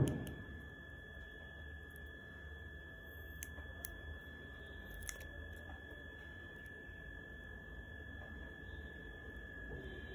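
A steady high-pitched tone over a low hum, with a couple of faint clicks near the middle.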